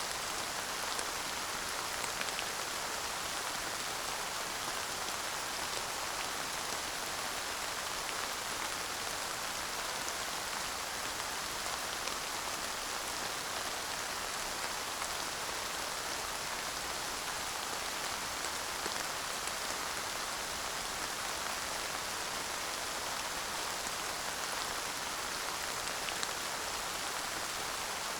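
Steady rain falling without thunder, an even hiss with faint scattered drop ticks.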